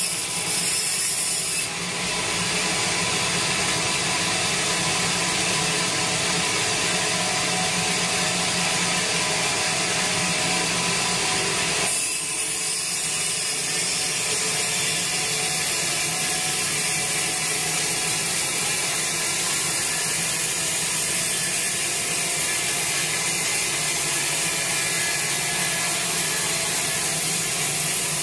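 Sawmill band saw running steadily while sawing a large teak log into planks. The sound shifts briefly near the start and again about twelve seconds in.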